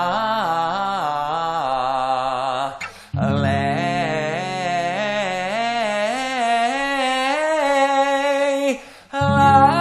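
Singer vocalising a warm-up scale on an open 'la'/'aye-ah' vowel, the voice stepping up and down through the notes over a steady held chord. The sound breaks off briefly for a breath about 3 seconds in and again near the end.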